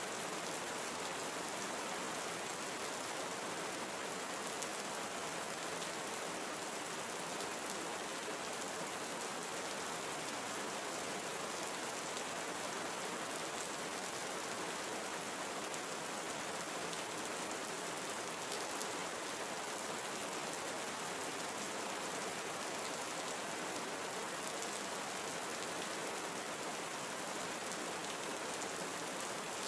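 Steady tropical rainforest rain, an even, unbroken hiss of many drops falling on the forest.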